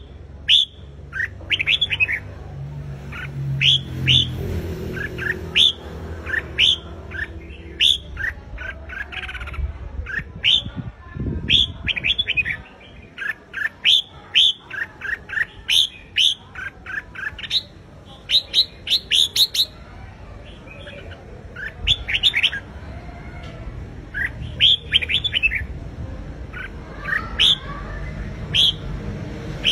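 Red-whiskered bulbul singing: a continuous string of short, clear whistled phrases, each made of quick notes sliding up and down, with brief pauses between phrases.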